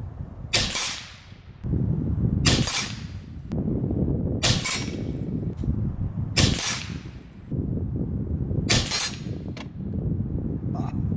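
Five shots from a .30 caliber Skout EPOCH PCP air rifle, about two seconds apart, each a sharp crack that trails off briefly.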